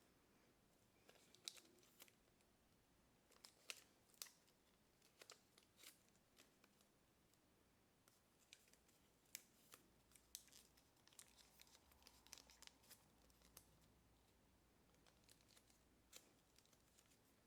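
Faint crackles and soft taps of a sheet of kami origami paper being creased and folded by hand, coming at irregular intervals.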